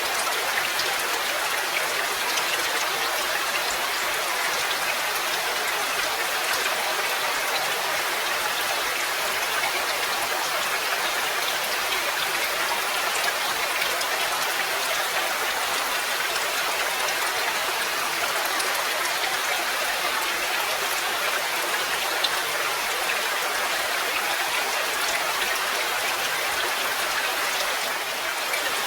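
Steady rain: an even hiss of many falling drops, with faint single drop ticks scattered through it.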